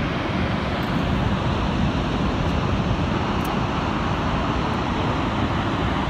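Steady, heavy rush of water pouring over the American Falls at Niagara and crashing onto the rocks below.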